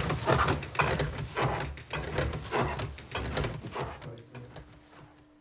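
Hand-worked thatch-mat-making machine clattering, with rapid irregular wooden knocks as thatching reed is fed through and stitched into a mat. The clatter dies away about four seconds in.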